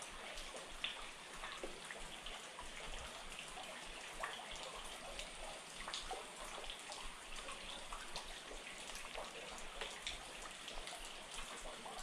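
Rain dripping and pattering: a steady hiss scattered with many small, irregular taps.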